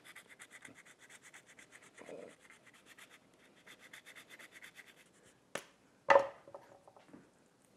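Parmesan cheese being grated on a handheld rasp grater: soft, quick, even scraping strokes, about nine a second, that stop about five seconds in. A sharp click follows, then a louder knock about a second later, the loudest sound here.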